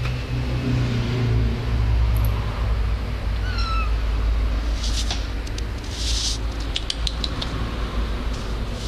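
Kitten giving one short, high meow about three and a half seconds in, over a steady low rumble of the phone being handled. Scratchy rustles and clicks follow as the kitten's claws catch on clothing while it climbs.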